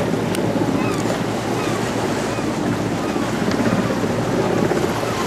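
Small waves washing on the shore and wind on the microphone, a steady seaside rush.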